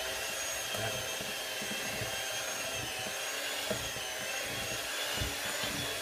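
Handheld electric mixer running steadily, its beaters whipping cream cheese, Cool Whip and Oreo cream filling in a stainless steel bowl, with a steady motor whine.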